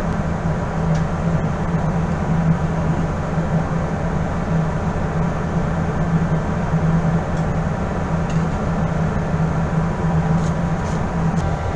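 Steady machinery drone with a constant low hum and no pauses, a few faint ticks over it.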